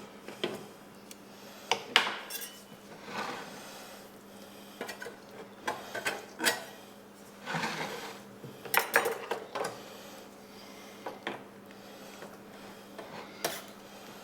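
Metal baking trays and utensils clinking and knocking irregularly, over a faint steady hum.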